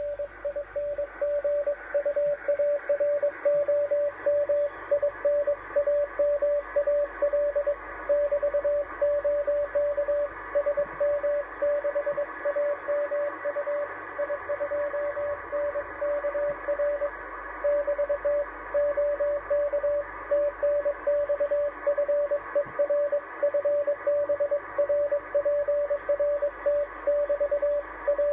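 Morse code (CW) received on the 10-metre amateur band through a radio's speaker: a single steady beep keyed on and off in quick dots and dashes, over a background of band hiss.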